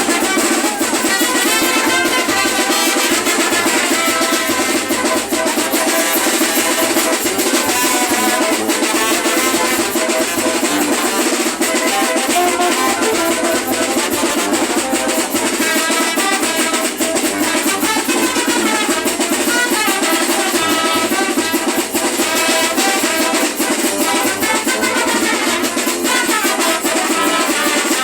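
Carnival street band playing loud, unbroken music, with drums keeping a steady beat under pitched melody instruments.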